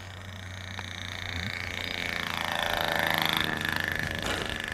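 Motor and propeller of a small radio-controlled airplane whining as it comes in to land. The whine grows louder and sweeps in pitch as the plane passes close about three seconds in, then eases off. A short knock near the end is its wheels touching the grass.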